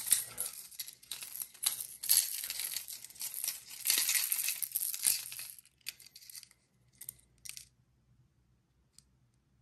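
Plastic packaging crinkling and crackling as a fishing lure is handled close by. The crinkling stops about halfway through and is followed by a few light clicks.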